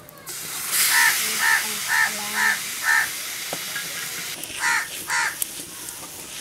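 Marinated chicken pieces sizzling as they land on a hot iron tawa griddle, a hiss that starts just after the beginning and keeps on. Over it a crow caws five times about half a second apart, then twice more near the end; the caws are the loudest sound.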